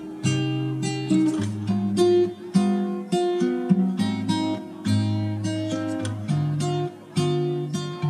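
Background music: an acoustic guitar picking notes, about two a second, over lower sustained notes.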